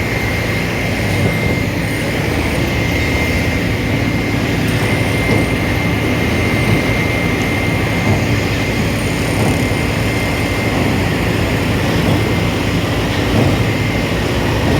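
Heavy diesel machinery running steadily at high revs, a deep engine drone with a constant high-pitched whine over it.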